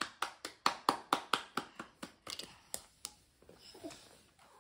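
A quick, regular run of sharp hand taps, about four a second. They thin out and fade after about three seconds.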